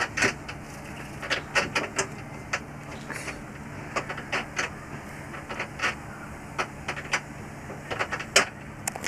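Scattered light clicks and taps at an irregular pace, over a steady low hum.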